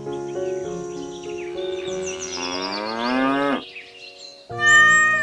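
Cow mooing sound effects over light background music, one long moo rising in pitch, then another loud animal call near the end.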